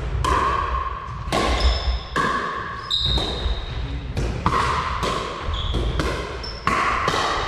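Pickleball rally: paddles strike a hollow plastic pickleball about once a second, each hit a sharp pop with a brief ring that carries in the hall.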